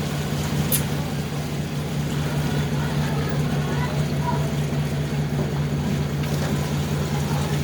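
A boat's engine running steadily, a constant low drone, with faint voices in the background.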